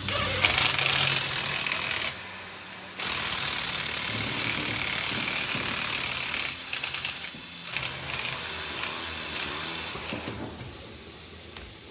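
Power drill running in two bursts with a short stop about two seconds in, boring out the puncture hole in a tyre, then air hissing out of the tyre, which is losing a lot of air.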